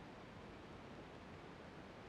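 Near silence: a faint, steady hiss with no engine or other distinct sound heard.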